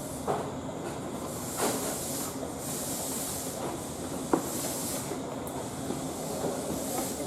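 Train sounds: a steady low rumble with short hisses of air and a few sharp clicks, the loudest about four seconds in.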